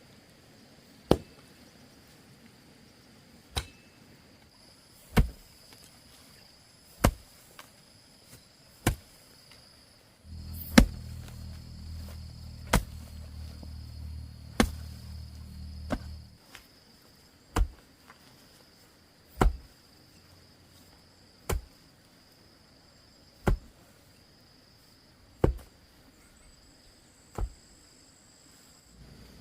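Sugarcane stalks being chopped with a heavy blade, a sharp chop about every two seconds, over a steady high insect drone. A low hum joins for several seconds in the middle.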